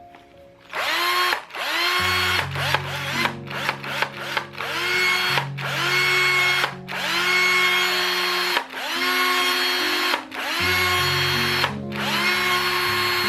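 Cordless drill motor triggered over and over, each time its whine rising quickly as it spins up and then holding steady. At first it runs in short bursts, about a dozen in the first six seconds or so, then in longer runs of a second or more. Background music plays underneath.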